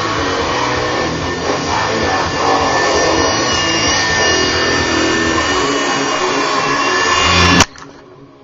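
A toy remote-control helicopter's small electric motor and rotor blades running with a steady whine. They cut off abruptly with a click near the end.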